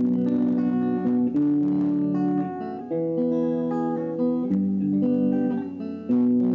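Clean electric guitar picking arpeggiated chords, with a new chord struck about every second and a half.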